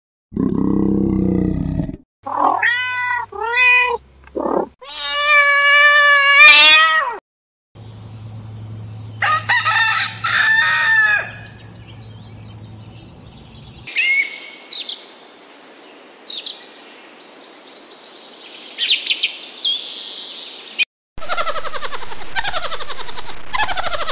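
A run of different animal calls cut one after another: low grunting at the start, then pitched calls including a rooster crowing, then a stretch of high chirps and squeaks near the end.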